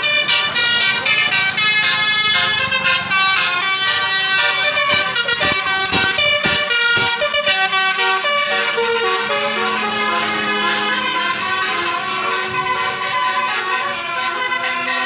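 Bus telolet horns: multi-tone musical air horns sounding a quick stepping melody, note after note, with several tones at once.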